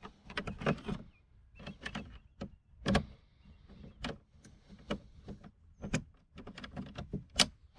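Irregular small clicks and taps of screwdriver tips against a screw and the door's plastic and metal trim, as a small screw is worked out of the interior door panel; two of the taps are sharper than the rest.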